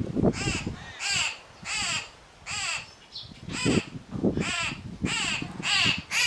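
A young bird's begging calls: harsh, raspy cries repeated about every half to three-quarters of a second, a hungry fledgling calling to be fed.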